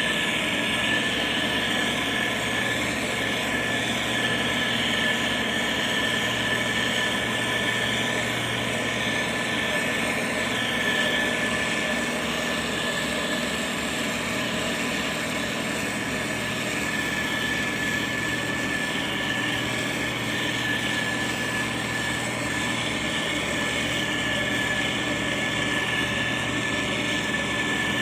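Motor grader's diesel engine running steadily under work, with a constant high whine over the engine note.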